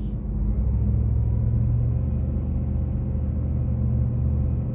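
Supercharged V8 engine idling with a low, steady rumble.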